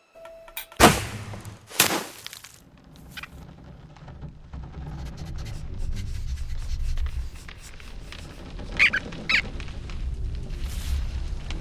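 Animated-film sound effects: two sharp hits about a second apart, then a low rumble that slowly builds, with two short high squeaks near the end.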